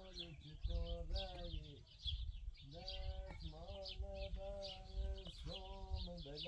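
Livestock bleating in several long, drawn-out calls that bend in pitch at their ends, with small birds chirping rapidly throughout.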